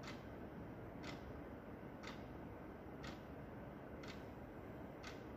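Quartz wall clock ticking, one sharp click per second as the second hand steps, about six ticks in all, over a steady faint hiss.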